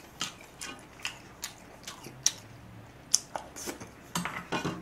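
Scattered light clicks and taps of a wooden spoon and chopsticks against a metal pot and a small plate, about a dozen at uneven intervals, bunched closer together near the end.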